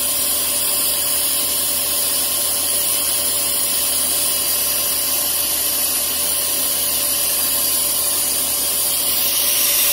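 Bridgeport EZ-Trak milling machine spindle running steadily with a drill bit being fed down into the workpiece, a constant whine over a loud steady hiss.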